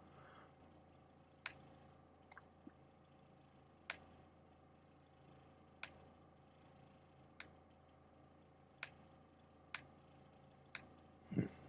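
Near silence with a faint steady hum, broken by about seven sharp single clicks spaced a second or two apart, from computer input as photos are paged through on screen.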